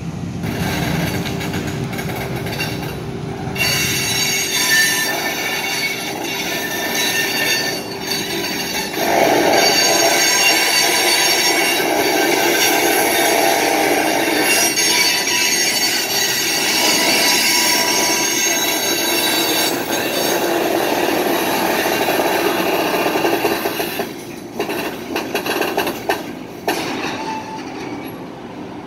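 Covered hopper cars rolling slowly by on a switching move, their wheels squealing in several steady high tones over the rumble of the trucks on the rails. The squeal sets in a few seconds in and dies away about five seconds before the end, leaving the quieter rumble.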